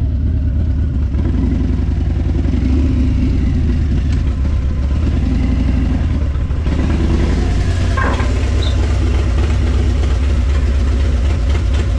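Harley-Davidson motorcycle's V-twin engine running steadily with a deep rumble.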